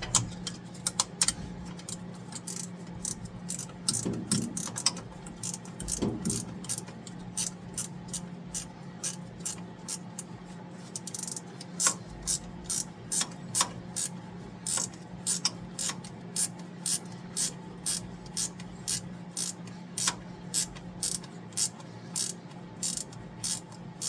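Ratchet wrench clicking as it turns a bolt while a new fuel pump is mounted, a steady run of sharp clicks about two a second, with a steady low hum underneath.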